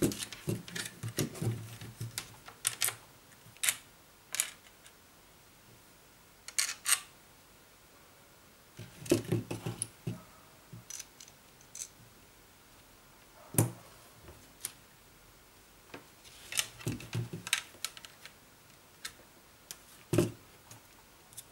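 Hands handling a plastic smartphone cage rig and a thin stainless-steel wire lanyard tether: irregular clicks, taps and light knocks, with a few clusters of duller knocks as the frame is moved on the desk.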